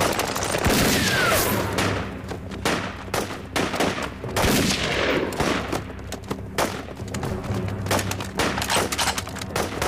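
A dense fusillade of gunfire: many rifle shots going off irregularly and overlapping, with a short falling whistle about a second in.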